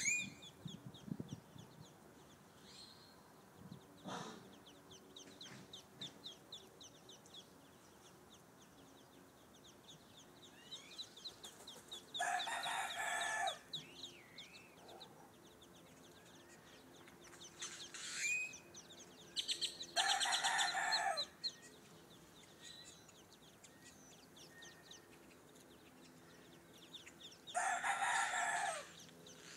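A brood of Muscovy ducklings peeping constantly, many thin high peeps a second. Four louder drawn-out calls cut in about twelve seconds in, twice around eighteen to twenty-one seconds, and near the end.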